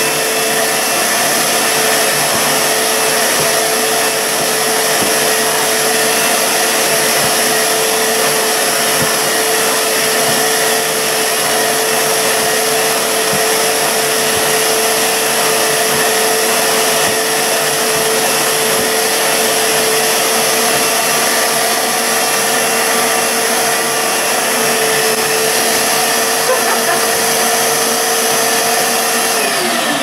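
Titan TTB350VAC 1300 W wet and dry vacuum cleaner running steadily with a motor whine while its floor head is pushed over a carpet rug, picking up fluff and dirt. Near the end the motor's pitch falls as it winds down.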